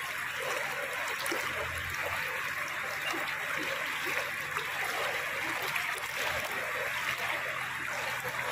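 River water flowing steadily, a strong current running past.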